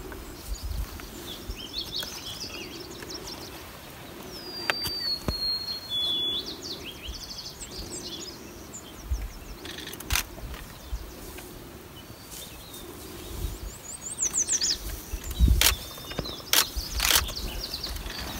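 Small birds chirping in quick runs of short downward-sliding notes, with a clear whistled note about a third of the way in and more chirping near the end. A few sharp clicks and low rumbles sound in the second half.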